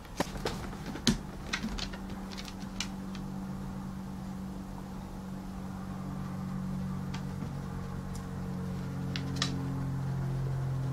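Sharp clicks and knocks of dogs' claws and a rubber toy on a hardwood floor, clustered in the first few seconds with a few more later. Under them, low sustained notes of background music build up and grow louder toward the end.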